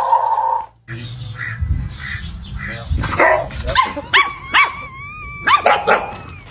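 A loud steady tone that cuts off about half a second in. Then dogs barking, with a run of short high-pitched yaps and yips that bend up and down in pitch over the second half.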